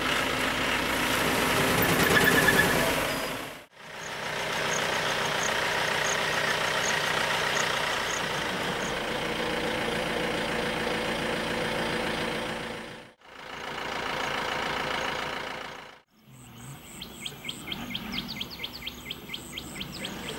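Vehicle engine and road noise, in several short clips with brief drops to silence between them. In the last few seconds a rapid, even series of high chirps, about four a second, sounds over a quieter background.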